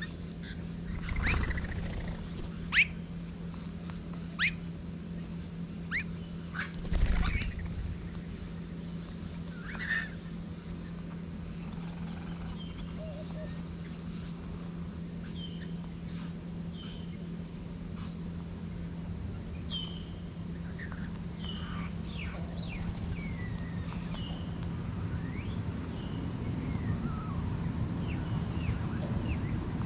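Mixed flock of backyard birds, including rainbow lorikeets, calling while they feed on the ground: a handful of sharp, loud calls in the first eight seconds, then scattered softer chirps that fall in pitch. Two low thumps come about a second in and again around seven seconds, and a steady high whine runs underneath.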